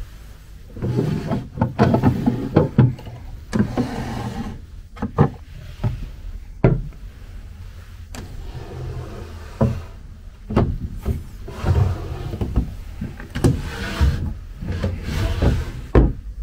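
Wooden writing bureau's drawers and drop-front lid handled by hand: sliding scrapes and a series of sharp knocks and clicks of wood on wood.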